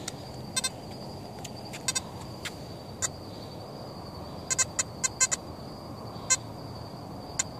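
XP Deus metal detector giving short, irregular beeps with no target under the coil, singly and in a quick run of several about four and a half seconds in, over a faint steady high whine. This is falsing: the detector won't stabilise and its target readings jump about.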